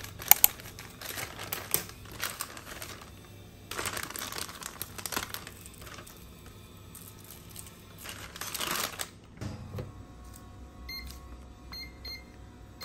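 Scissors cutting open a crinkly plastic food package, with the plastic rustling as it is handled. Near the end, several short beeps from a microwave oven's keypad as its buttons are pressed.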